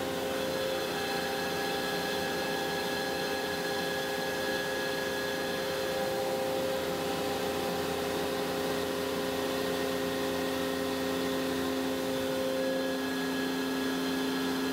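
Tormach PCNC 1100 spindle running a compression cutter through Richlite while a shop vacuum draws air and chips through the dust shoe: a steady machine hum of several held tones over an even hiss.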